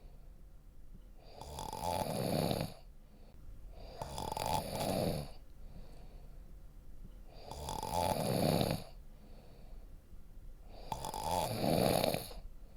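A person snoring in sleep: four snores, each lasting just over a second, coming about every three and a half seconds with quiet breaths between.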